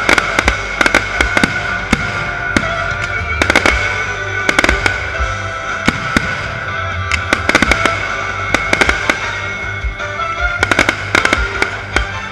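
Fireworks display: many sharp bangs and crackles of bursting shells in quick succession, over music playing throughout.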